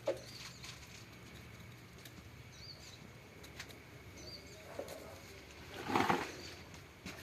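Small birds chirping briefly a few times, with a short louder noise about six seconds in.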